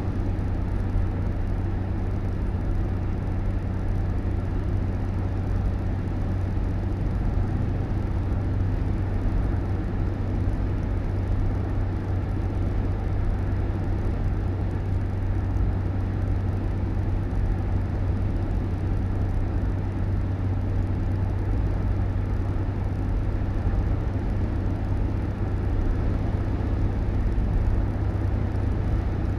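Steady low rumble and hum of a motor vehicle running, unchanging throughout.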